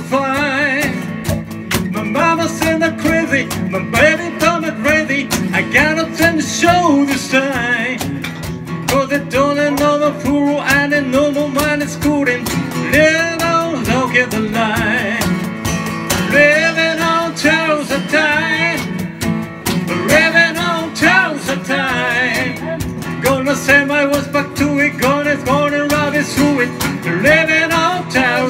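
A live acoustic duo playing a song: a strummed acoustic guitar under a man's and a woman's voices singing together.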